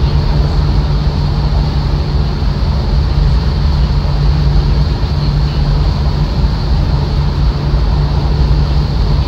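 Steady engine and road noise inside a moving car's cabin at cruising speed, a constant low drone under an even rush of sound.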